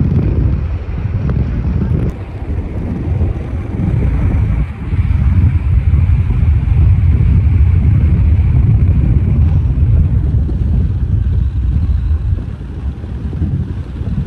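Wind buffeting the microphone aboard a moving tour boat: a loud, steady low rumble, with the boat's engine and water noise underneath.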